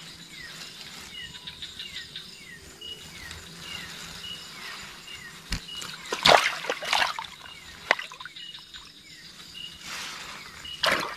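Nighttime outdoor ambience with a small animal's call repeating about every half second: a short falling chirp followed by a brief high note. Louder noisy sounds, possibly water sloshing, come about six seconds in and again near the end.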